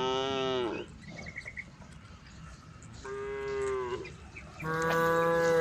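Cattle mooing: a long moo ends just under a second in, another comes about three seconds in, and a third starts near the end.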